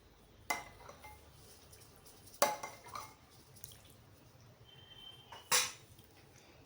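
Three sharp clinks of dishware, about two and a half seconds apart, each with a short ring.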